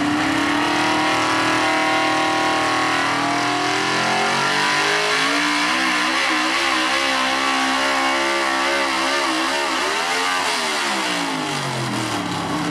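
Chevrolet square-body 4x4 pulling truck's engine at high revs under load as it drags a weight-transfer sled. The pitch wavers while held high, climbs briefly about ten seconds in, then falls away steadily near the end.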